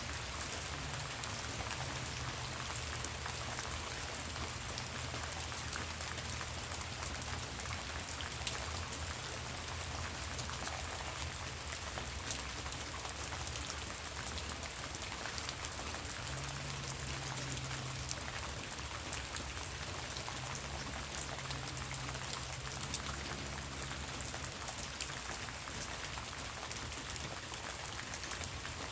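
Gentle rain falling steadily, with many small drop ticks. A faint low hum comes and goes underneath.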